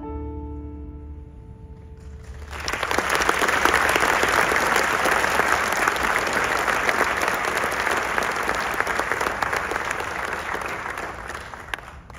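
A last held musical chord fades out, then an audience bursts into applause about two and a half seconds in; the clapping holds steady and tapers off near the end.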